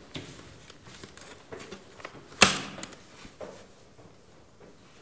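A single sharp knock about two and a half seconds in, amid a few faint small clicks, from brushes and painting things being handled on the table.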